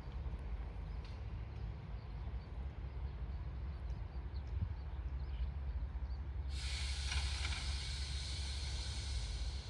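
Electric train at a standstill or creeping in a shunting move, with a steady low rumble; about two-thirds in, a sudden loud hiss of compressed air starts and runs on, typical of air brakes releasing.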